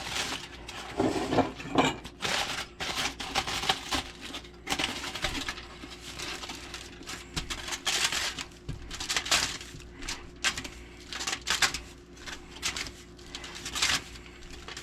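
Irregular kitchen handling sounds: a steady run of scraping, light knocks and clinks as dishes and utensils are handled and something is cleaned off.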